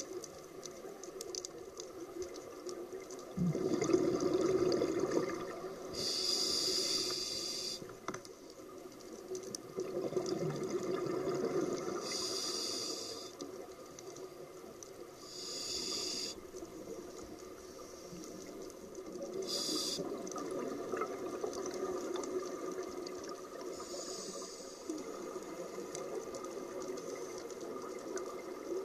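Scuba diver breathing through a regulator underwater: short sharp hisses of inhaled air alternate with bubbly rumbles of exhaled air. About four breaths.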